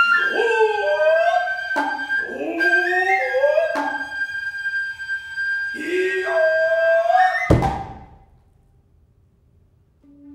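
Noh hayashi music: a nohkan flute holds a high, piercing note while tsuzumi hand drums strike sharply four or five times, and the drummers' long sliding kakegoe calls rise and fall between the strokes. A last loud drum stroke comes about seven and a half seconds in, after which the sound dies away to near silence.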